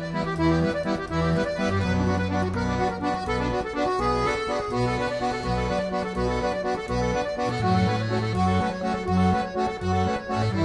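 Background music played on an accordion: a melody over a moving bass line.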